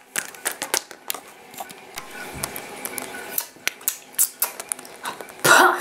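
Hard plastic toy figures clicking and tapping against a small plastic food dish and the countertop as they are handled, a quick irregular run of sharp clicks, with a louder short noise near the end.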